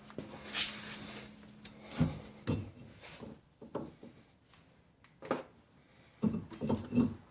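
Scattered knocks, clicks and rubbing of tools and metal brake and hub parts being handled during wheel hub reassembly, with a quick cluster of knocks near the end.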